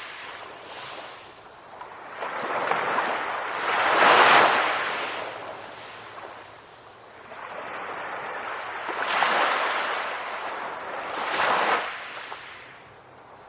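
Ocean waves breaking and washing up the shore, a hiss that swells and fades in surges: the biggest about four seconds in, then two more in the second half.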